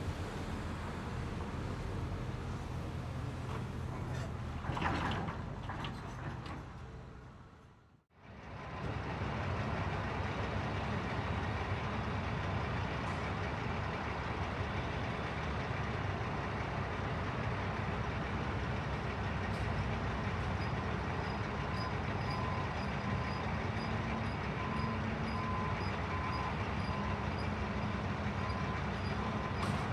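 Construction site ambience: steady heavy machinery rumble that fades out and back in about a quarter of the way through. From about two-thirds of the way in, a reversing alarm beeps repeatedly at about one and a half beeps a second over the rumble.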